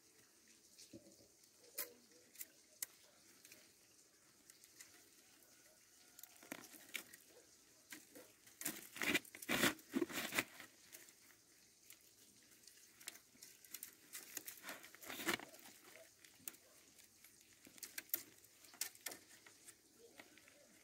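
Split carrizo cane strips rustling, scraping and clicking against each other as they are woven into a basket. The sound comes in scattered snaps, with a denser run of crackling and scraping about nine to ten seconds in and another short one around fifteen seconds.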